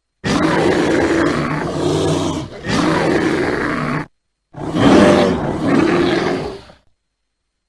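Bear roaring three times, each roar rough and two to three seconds long, with short breaks between.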